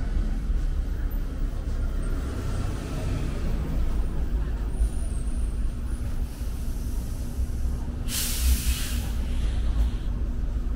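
Low, steady rumble of city street traffic, with one sharp hiss of a bus's air brakes releasing, lasting about a second, some eight seconds in.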